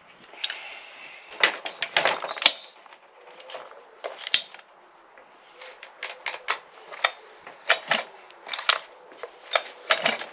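Stihl MS 462 C chainsaw's recoil starter being tried out by hand after a new cord and grip were fitted: clicks and rattles of the tool and plastic housing in the first couple of seconds, then a string of sharp, uneven clicks, a few a second, as the cord is pulled out and let back in.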